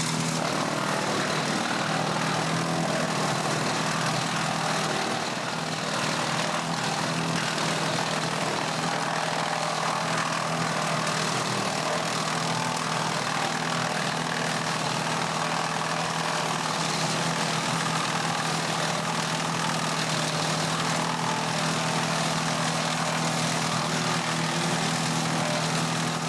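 Tractor-driven PTO wood chipper running steadily with nothing being fed: an even engine drone with a constant hum and a broad rushing hiss, and no chipping impacts.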